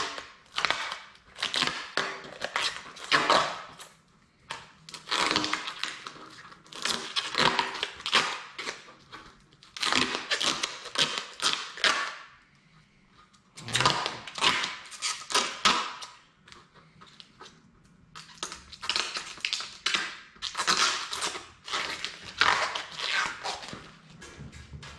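Plastic protective film being peeled off a white race-car body panel, making irregular crackling, tearing rustles in bursts with a few short pauses.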